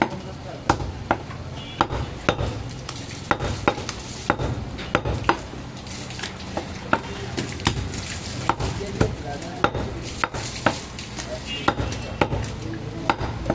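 Large butcher's knife chopping goat meat against a wooden log chopping block: sharp, irregular knocks, about one or two a second, over a steady background hum.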